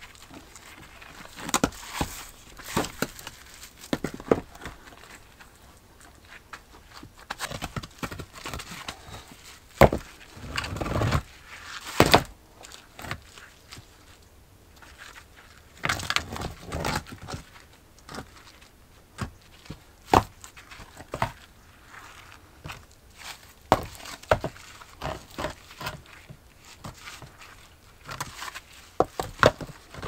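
Flat stones knocking and scraping against each other as they are lifted and set by hand into a dry-stone wall: irregular sharp clacks, with a couple of longer scrapes.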